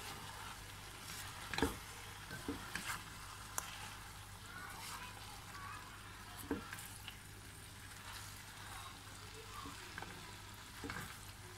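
Fried chicken pieces and chopped vegetables sizzling quietly in a metal pot on the lowest flame while being stirred with a spatula. A few short knocks and scrapes of the spatula against the pot come scattered throughout.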